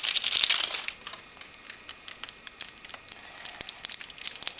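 Toy packaging crinkling and tearing as it is handled and opened by hand. A dense crinkle comes in the first second, followed by scattered small crackles and clicks.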